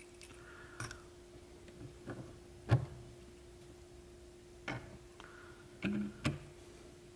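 Scattered clicks and taps of metal pen parts knocking against a metal vise as a pen is positioned and pressed together; about five separate knocks, the loudest about two and a half seconds in and two close together near the end.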